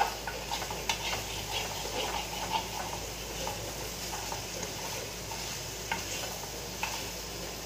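Metal spoon stirring and scraping pasta around a non-stick frying pan on a lit gas burner, with a light sizzle underneath. The scrapes and taps come thick in the first few seconds, then only now and then, with single taps near the end.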